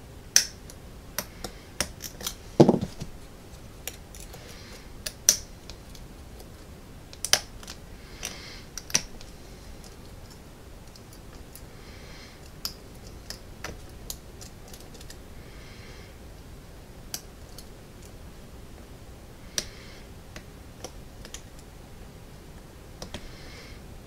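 Hook pick and tension wrench clicking and scraping inside the keyway of a solid brass American Series 5560 padlock as its pin tumblers, which have serrated driver pins, are picked: irregular sharp clicks, thickest in the first ten seconds and sparser after, with faint scraping between them. A duller knock comes about two and a half seconds in.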